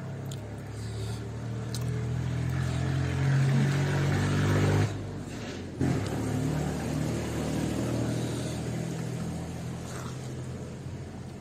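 A motor vehicle engine running, growing louder over the first five seconds, then dropping off suddenly and fading slowly.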